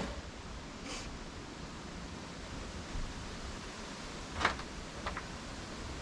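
Steady background hiss with a few brief light knocks: a faint one about a second in, a sharper one about four and a half seconds in, and a small double click just after.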